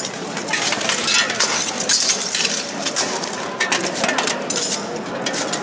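Steel plate armour and weapons clinking and clanking repeatedly as two armoured fighters move and spar, with many sharp metallic clicks.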